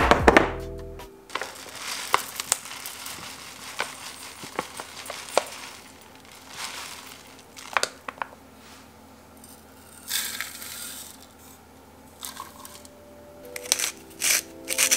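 Dry crust ingredients being tipped into a plastic food processor bowl: short rustling pours with light clicks and taps against the bowl. Soft background music plays at the start and comes back near the end, when sea salt is added.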